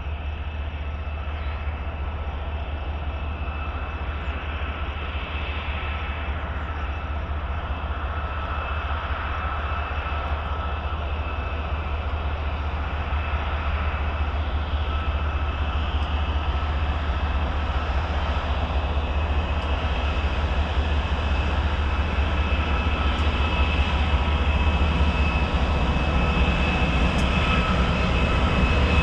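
Two BNSF diesel locomotives leading an empty oil tank train down a grade, running with a low rumble and a steady high whine. The sound grows louder as the train approaches.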